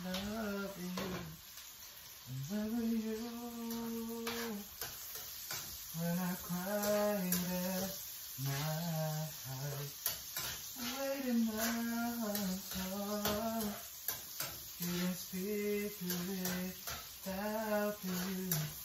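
Food sizzling in a frying pan as a spatula stirs it, with scattered clicks and scrapes of the utensil against the pan. A voice hums a slow tune over it in long held notes.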